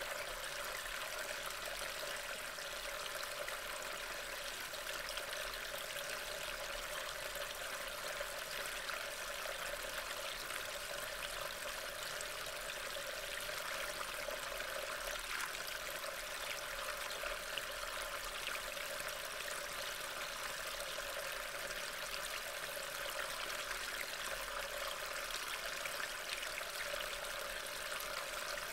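Steady rain falling on leaves and ground, an even hiss of many fine drops, picked up by a trail camera's small built-in microphone.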